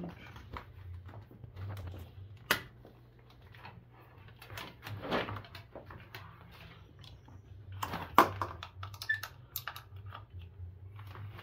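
Scattered light clicks, knocks and rustles as the cord and plug of an electric hand mixer are handled and pushed into a wall socket, with a sharper knock a few seconds before the end. The mixer is not yet running.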